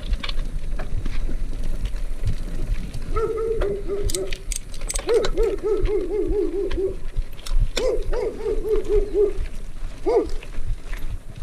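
Mountain bike rolling over rough stone paving: a steady low rumble of the tyres with scattered clatter from the bike. Over it an animal calls in three quick runs of short repeated notes, then once more near the end.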